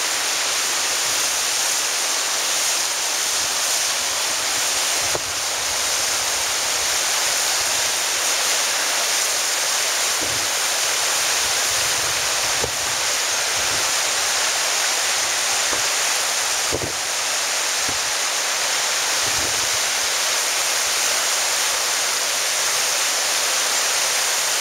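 Steady rushing of water pouring over a low concrete weir on a stream, a constant high hiss, with a few faint low bumps on the microphone.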